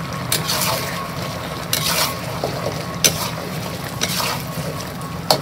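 Metal ladle stirring a simmering chicken and winter melon stew in a steel wok, with about five short scrapes against the pan roughly a second apart over a steady low hum.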